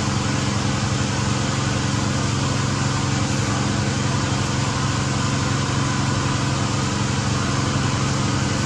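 A small engine running steadily, an even drone with no change in speed.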